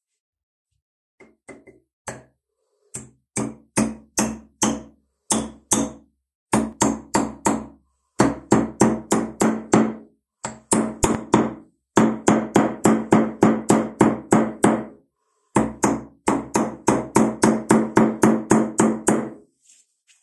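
Hammer blows, sparse at first and then in quick runs of about three to four a second, each with a short ringing tone.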